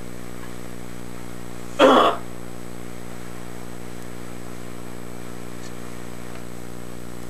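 A steady hum, broken about two seconds in by one short, loud cough.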